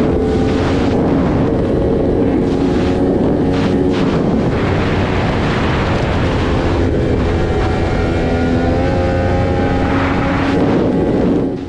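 Sport motorcycle engine running at steady highway speed, its note holding nearly level, under loud wind rush over the microphone.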